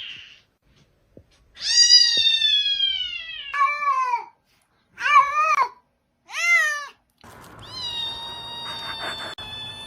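A cat meowing again and again: a long drawn-out meow that falls in pitch, three shorter meows, then a long, level cry near the end with some background noise behind it.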